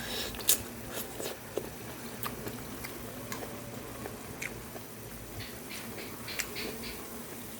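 Pan of adobo sauce with string beans simmering on raised heat, a low steady bubbling with scattered crisp clicks and pops. The loudest click comes about half a second in, and a quick run of them comes near the end.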